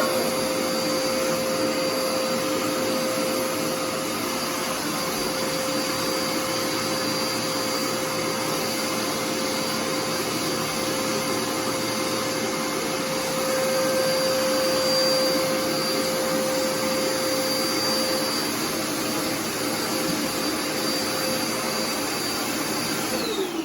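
Dirt Devil Endura Reach vacuum cleaner running steadily, a constant whine over the motor's rush of air. Near the end it is switched off and the whine falls away as the motor winds down.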